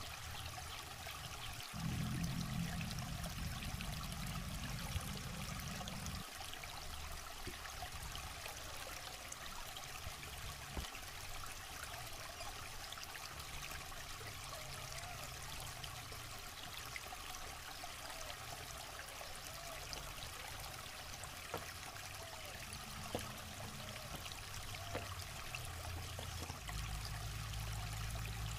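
Shallow rocky river running and trickling over stones, a steady rush of water. A low rumble comes in about two seconds in, fades out around six seconds, and returns near the end.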